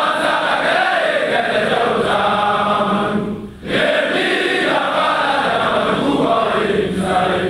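A group of voices chanting together in unison, in phrases, with a short pause for breath about three and a half seconds in.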